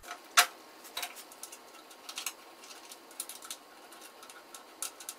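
Light, irregular clicks and taps of metal screws, nuts and a hand tool being worked while fastening a band saw extension table, with a sharper click about half a second in.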